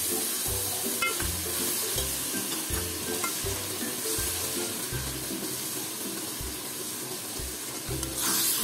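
Fresh tomato paste sizzling in hot oil with fried onions, ginger and garlic in a steel pot, stirred with a steel spoon: the masala is being fried down (bhunai).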